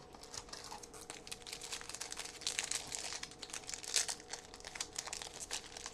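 Trading-card pack wrapper crinkling and crackling as it is handled and opened, busiest in the middle.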